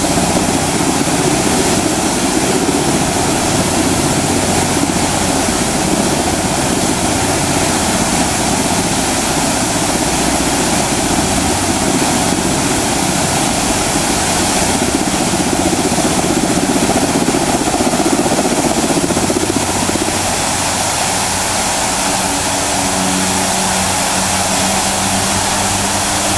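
Friendship Fountain's tall water jets spraying and splashing, a loud, steady rush of water. About twenty seconds in, a low steady hum joins it.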